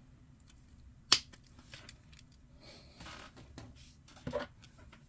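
Plastic sprue cutters snipping a plastic miniature part off its sprue: one sharp snap about a second in, then soft handling rustle and a duller click just after four seconds.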